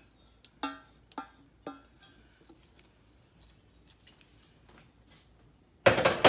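Wooden spoon knocking against the rim of a stainless steel saucepan as the last of the dressing is scraped out: three short ringing knocks in the first two seconds, then a few faint ticks of stirring in a plastic bowl. A louder sudden knock or thump comes near the end.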